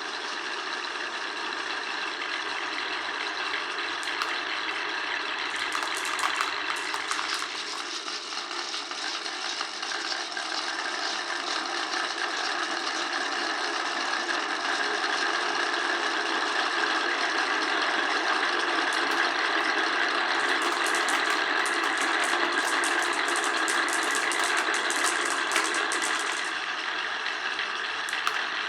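Marbles rolling along marble-run tracks in a continuous rolling rumble, with bursts of rapid clicks and clatter as they knock along the pieces about five seconds in and again through the second half.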